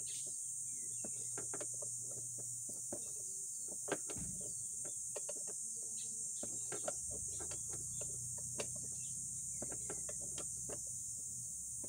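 Steady high insect buzz, with scattered small clicks and knocks from hands working on a scooter, the sharpest about four seconds in and again near seven seconds.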